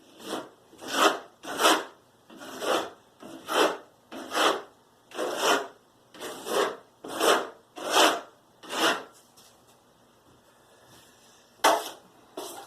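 Back-and-forth scraping strokes on drywall joint compound, about a dozen in steady rhythm, stopping about nine seconds in. Two sharper scrapes follow near the end.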